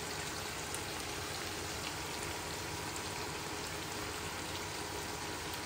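Chicken and potato curry sizzling steadily in a kadai as curd is added to the masala.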